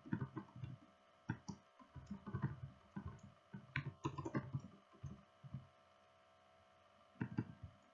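Typing on a computer keyboard: quick, irregular runs of keystrokes, with a short pause about six seconds in.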